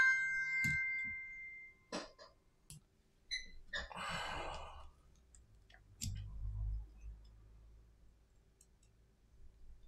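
Small-tool handling on a silicone repair mat during a phone repair: scattered light clicks and taps, and a short noisy burst about four seconds in as a precision screwdriver is picked up, then faint quiet screw work. At the start an electronic ringing tone fades out.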